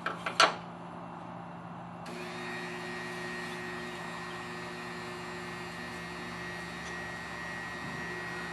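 A couple of light clicks, then an electric drill starts about two seconds in and runs steadily with a whine, boring small starter holes for a scroll saw blade.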